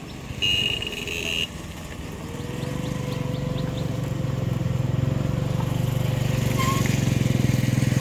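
A vehicle engine running steadily, growing gradually louder, with a brief high steady beep about half a second in.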